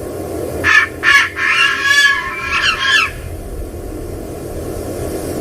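Bird calls: two short calls about a second in, then a longer run of rich, many-overtoned calls ending around three seconds in, over a steady low background.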